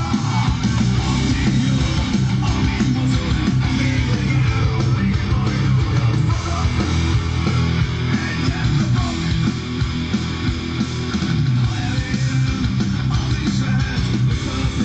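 Guitar rock music with electric guitar and bass, played from a mobile phone through a homemade stereo amplifier and heard from a loudspeaker, strongest in the bass.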